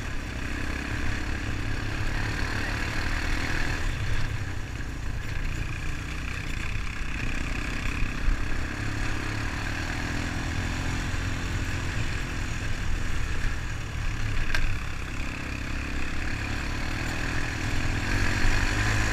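Honda ATV single-cylinder engine running at a low, steady note.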